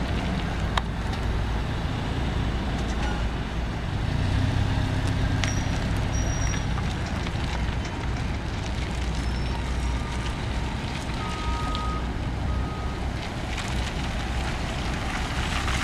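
2009 Toyota Tacoma pickup driving at low speed across a paved lot: a steady low engine hum with tyre noise, louder for a few seconds about four seconds in.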